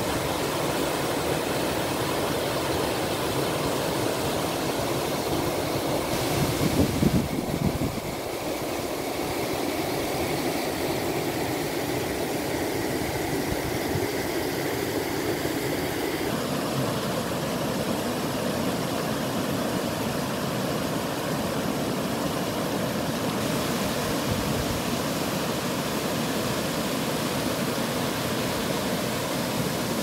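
A six-metre waterfall of brown rain-swollen stream water rushing steadily over a rock face. A brief louder low rumble comes about seven seconds in, and the water sound shifts slightly a little past halfway.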